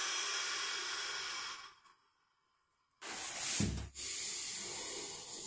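A man breathing out in a long, steady exhale as he lets go of an isometric hip contraction. After about a second of silence comes a short, sharp breath, then another long breath.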